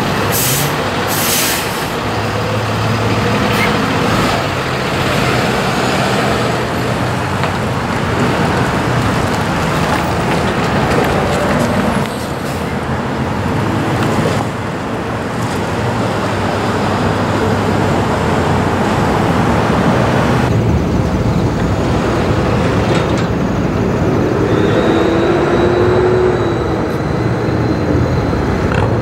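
A flatbed tow truck's engine running over steady road traffic noise.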